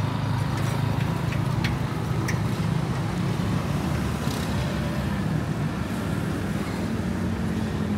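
Street traffic with a vehicle engine running close by, a steady low drone whose pitch creeps up slightly near the end.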